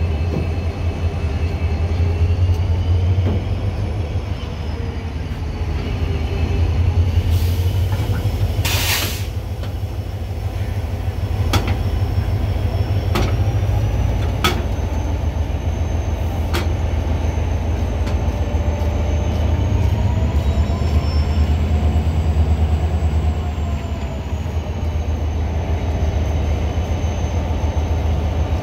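HGMU-30R diesel-electric locomotive idling close by with a steady low drone and slowly wavering tones. A brief burst of hissing comes about nine seconds in, and a few sharp metal clinks follow from the coupling and hose work.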